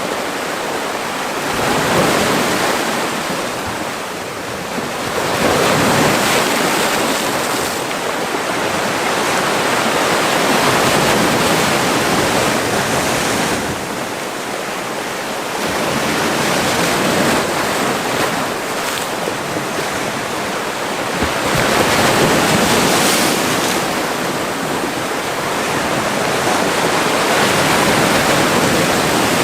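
Mediterranean sea waves breaking and washing ashore in a small cove, in repeated surges that swell and fall away about every five seconds.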